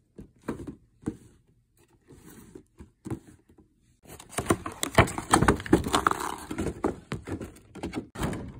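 A cardboard figure box with a clear plastic window being handled: a few scattered taps and clicks, then from about four seconds in a dense run of rustling, scraping and clicking as the box is gripped and turned.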